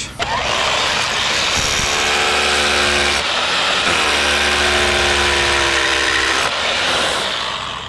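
Makita rotary hammer drilling with a 3/4-inch bit into a concrete block column, the motor running steadily. It eases off briefly about three seconds in, picks back up, and winds down near the end.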